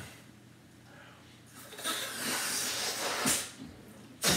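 Air hissing out of the neck of a pink rubber balloon as it is let down to make a wind, a steady breathy rush for about two seconds starting about a second and a half in, followed by a short, sharper gust near the end.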